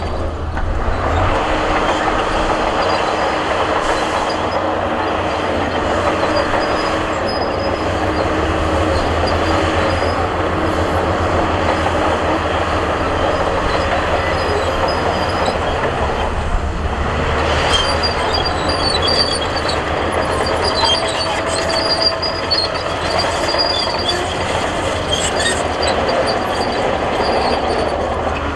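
Crawler bulldozer working: the diesel engine runs steadily under load while its steel tracks clank and squeal.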